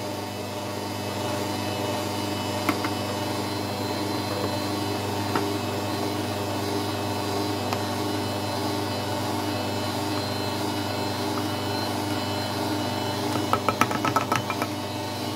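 Electric stand mixer motor running at a steady speed, beating cake batter as flour goes in. Near the end comes a quick run of sharp taps as a metal spoon knocks and scrapes the last flour from a bowl.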